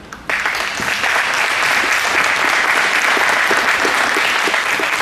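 Audience applauding, breaking out suddenly just after the start and holding steady.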